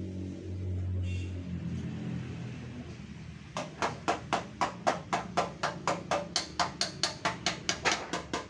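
Quick, light hammer taps on a dented steel car fender being knocked back into shape, about four or five taps a second, starting about halfway through. Before the taps there is a low steady hum.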